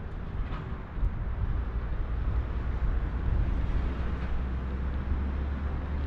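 Low, gusty rumble of wind on the microphone mixed with the distant roar of a Boeing 777-300's jet engines on final approach. The sound fades in over the first second.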